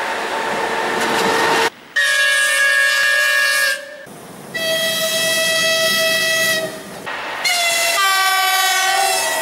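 Russian electric locomotives passing, first with a rushing noise, then three separate horn blasts of about two seconds each, spliced one after another. Each blast is a steady pitched note; the last sounds two notes together and sags slightly in pitch.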